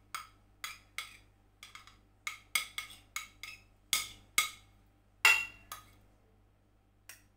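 A spoon clinking and scraping against a plate as it presses grated tomato pulp to squeeze out the juice. Quick irregular taps, a few a second, with the loudest clink about five seconds in; then it goes mostly quiet, with two faint clicks near the end.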